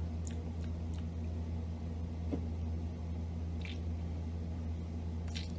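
Steady low hum of room tone with a few faint, short clicks scattered through it.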